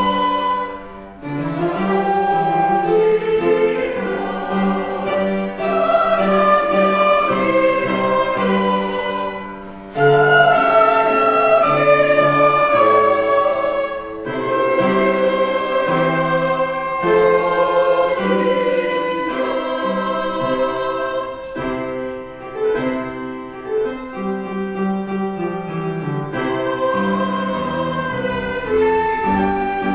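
Church choir singing with instrumental accompaniment that includes bowed strings, in long held phrases. The sound dips briefly about a second in and again near ten seconds before the next phrase begins.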